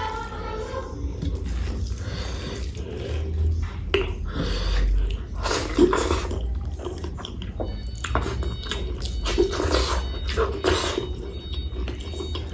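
Close-miked chewing and eating of rice and curry: irregular wet, sticky mouth sounds and small clicks.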